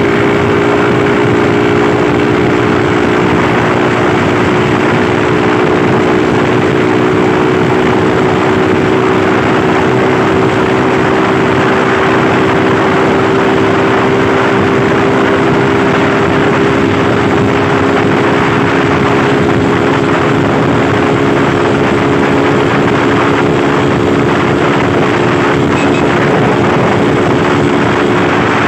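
Rusi motorcycle's engine running at a steady pace while riding, with an even rush of noise over it.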